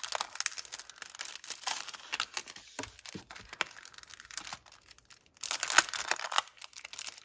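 Thin plastic packaging crinkling as a small wrapped pack is handled and opened, in irregular crackles that grow louder in the last couple of seconds.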